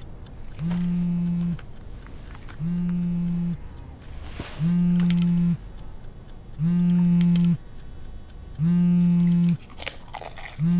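A low electric buzz sounding five times, each buzz about a second long and repeating every two seconds.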